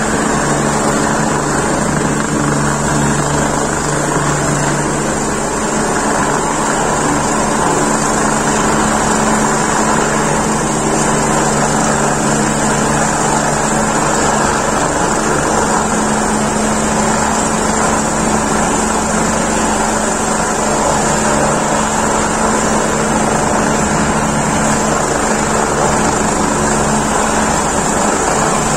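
Helicopter running on the ground with its turbine engine going and main rotor turning, before take-off: a steady drone with a constant low hum.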